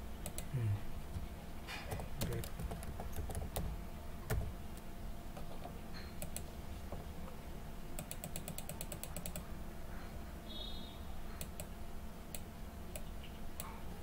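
Computer keyboard keystrokes, spaced out with pauses, as a word is typed, and a quick even run of clicks about eight seconds in, from repeated clicking on a font-size control. A steady low hum runs underneath.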